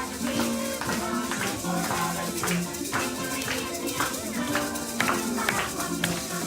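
Upbeat music with a shaker and tambourine rhythm over a steady beat.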